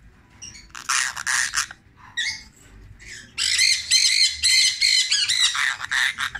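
Brown-throated conure (St. Thomas conure) squawking harshly a few times. Then, from about the middle, a longer rapid run of raspy, chattering parrot vocalisation, a talking conure's mimicked greeting 'ohayō gozaimasu' ('good morning').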